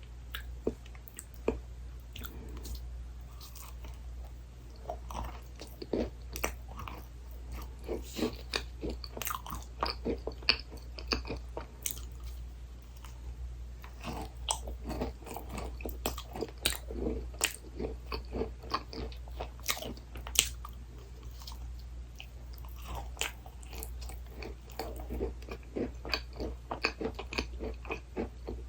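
Close-miked eating sounds: a person biting and chewing desserts, with irregular crisp crunches, over a low steady hum.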